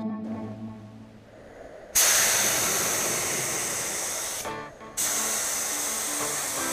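Budget gravity-fed air spray gun spraying basecoat: a loud air-and-paint hiss starts suddenly about two seconds in, stops briefly around four and a half seconds, then starts again for a second pass.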